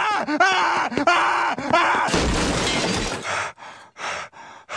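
A man's drawn-out yell of shock, then about two seconds in a loud crash of glass and objects breaking as he slams into a supply cabinet.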